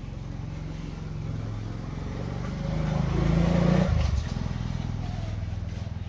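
An engine running steadily with a low hum, swelling louder for about a second and a half around the middle and then settling back.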